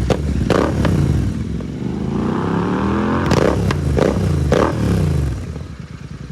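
Royal Enfield Continental GT650's parallel-twin engine through a Red Rooster aftermarket exhaust, its revs rising and falling, with sharp pops and crackles from the exhaust as the revs drop. The sound fades away near the end.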